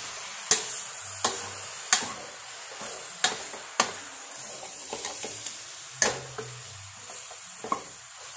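A long steel spoon stirring beef pieces and masala in a stainless steel pressure cooker, knocking against the pot about seven times at irregular intervals over a steady sizzle of the meat cooking.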